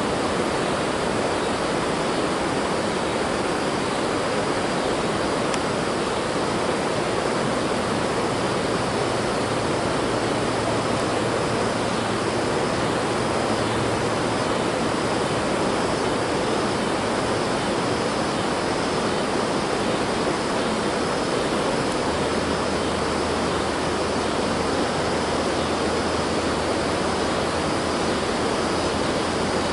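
Steady, even rushing noise with no breaks; a faint low hum joins it about two-thirds of the way through.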